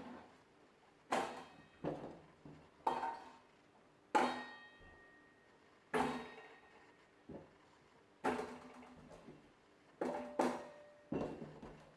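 Potatoes being set one at a time into the pan of a kitchen scale: about ten separate hard knocks, a second or two apart, each with a short ring from the pan.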